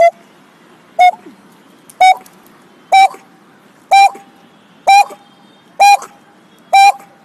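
A man imitating a bird call with his voice: eight short, sharp, piping notes, all at the same pitch, repeated evenly about once a second.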